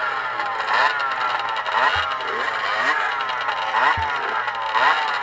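Several motocross bike engines at the start line, revved in repeated blips so their pitch rises and falls about once a second. Two dull knocks come about two and four seconds in.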